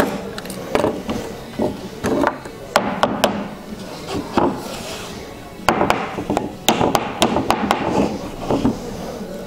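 A hand staple gun driving staples and a small hammer knocking them into a wooden stretcher frame through linen canvas: a string of sharp knocks and clicks, bunched in quick runs.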